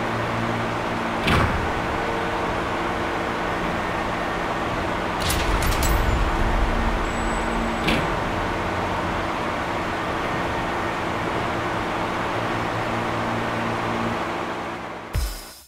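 A steady droning hum with low humming tones, like machinery running. A knock comes about a second in, a short clatter around five seconds in, and another knock near eight seconds. The drone fades away near the end.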